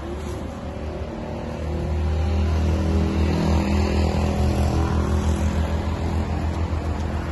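A motor vehicle's engine running with a low steady hum, growing louder about two seconds in and slowly fading near the end.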